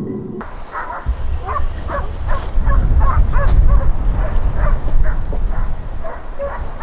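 Hunting dogs barking in quick repeated yelps, about three a second, as they chase a wild boar, over a low rumble that starts about a second in.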